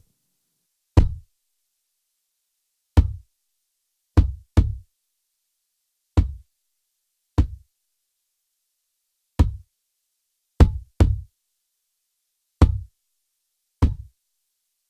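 Recorded kick drum hits played back through a Lindell Audio 7X-500, an 1176-style compressor, with the compression slammed all the way. The hits are separate, each a sharp click with a short low thump, about one every second or two, with a couple of quick double hits.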